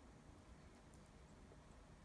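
Near silence: room tone, with a few faint tiny ticks.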